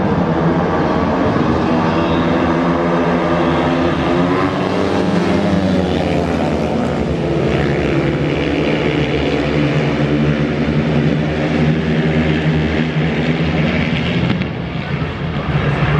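Dirt-track racing motorcycles at full throttle in a race, a continuous loud engine drone whose pitch wavers up and down with the throttle as the riders go through the bend and down the straight. The sound drops briefly near the end.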